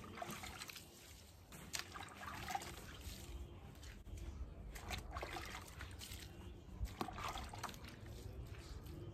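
Water scooped by hand from a plastic bucket, trickling and splashing over a small dog's wet coat during a bath, with scattered small splashes.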